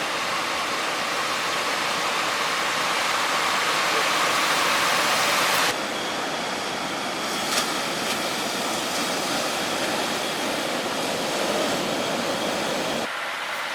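Steady rushing noise of ocean surf breaking, heavy with typhoon swell, changing abruptly about six seconds in and again near the end.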